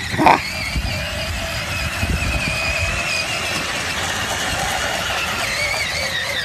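Electric ride-on toy monster truck's drive motors and gearboxes whining steadily, the pitch wavering as it labours over bumpy dirt, with a short thump near the start.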